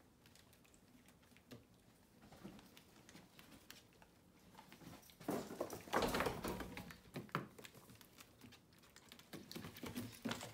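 Light taps, patter and scrapes from a white-faced capuchin monkey moving about on a wooden dresser and at a plastic tub of oatmeal. A louder rustling, scraping scuffle comes about five seconds in and lasts about two seconds.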